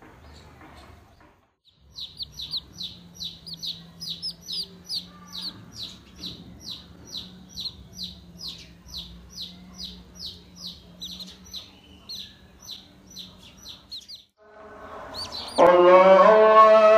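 A newly hatched domestic chicken chick peeping loudly and repeatedly, about three short, falling-pitch peeps a second. Near the end the peeping stops and loud music cuts in.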